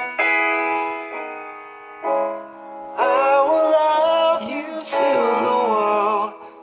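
Song with held keyboard chords, joined about three seconds in by a high sung vocal with vibrato.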